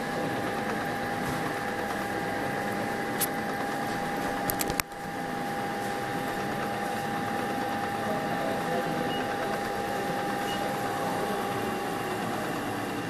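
CNC milling machine running steadily, its spindle giving a constant whine over a mechanical hum. A few sharp clicks come a few seconds in, and the sound drops out briefly just before it resumes.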